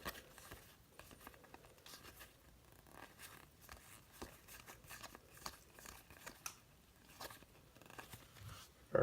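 Faint soft clicks and rustles of baseball trading cards being handled and flipped through by hand.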